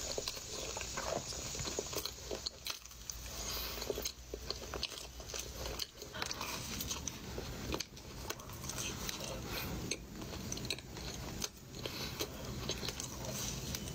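Mukbang eating sounds: a person chewing and biting into doughnuts, with many small irregular mouth clicks throughout.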